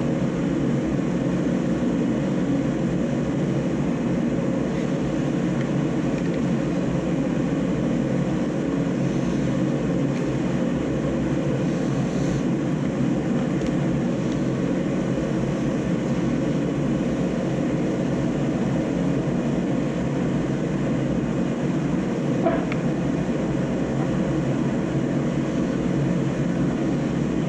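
Shop heater running with a steady low rumble and hum, and a couple of faint clicks from small parts being handled.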